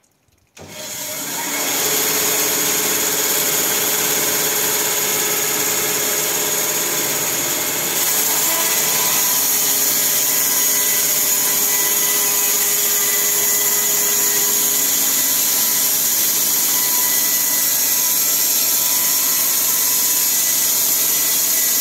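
Band sawmill with a 7.5 kW electric motor starting about half a second in and running up to speed over a second or so, then running steadily with a high hiss and a few steady tones. From about eight seconds in it is slightly louder as the band blade saws lengthwise through a log.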